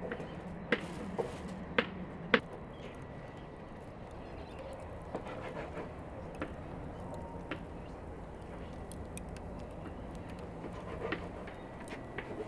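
Several sharp clicks in the first two seconds or so, then a low steady outdoor background with a few faint ticks.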